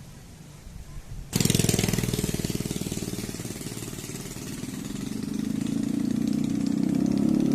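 An engine running with a fast, even pulsing. It cuts in suddenly about a second in, eases off a little, then grows louder again toward the end.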